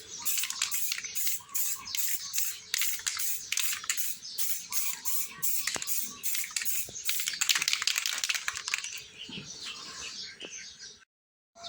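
Aerosol spray-paint can (Samurai paint) hissing in many short repeated bursts as a light coat of black is sprayed onto a motorcycle engine side cover. The spraying thins out near the end. Faint bird chirps sound in the background.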